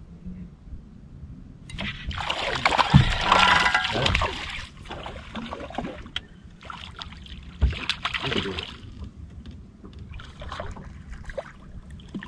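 Small waves slapping and sloshing against the boat's hull in irregular bursts. The loudest burst runs for a couple of seconds starting about two seconds in, and a shorter one comes near eight seconds.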